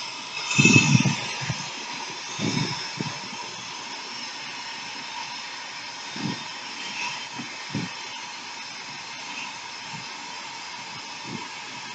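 Handheld hair dryer running steadily: a constant rush of air with a faint steady whine. A few short low thumps come and go over it, the loudest about a second in.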